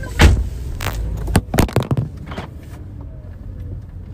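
A car door slammed hard, a loud sudden bang about a quarter second in, followed by several sharp knocks and clatters over the next two seconds before things settle.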